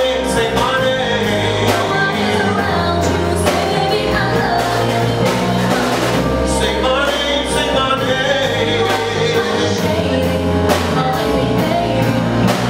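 A live band playing a song: a woman singing into a microphone over electric bass guitar, keyboard and a drum kit.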